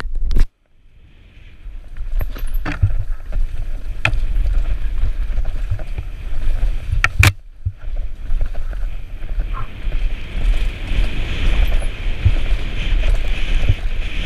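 Downhill mountain bike running fast down a dirt trail: a steady rumble of wind on the microphone and tyres over the ground, with sharp knocks and rattles from the bike over bumps. The sound drops out almost completely for about a second just after the start, then builds back up.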